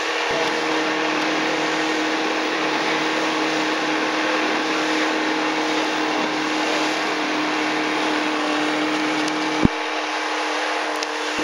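Motorboat engine running at a steady speed, a constant drone over the rush of water along the hull. A single sharp knock near the end.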